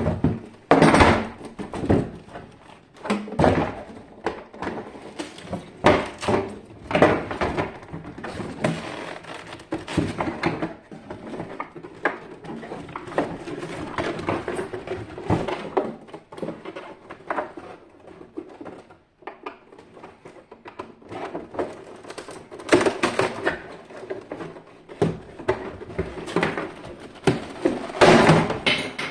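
Irregular knocking, clattering and scraping of metal parts and hand tools as an electric water heater is taken apart, with a brief lull a little past the middle.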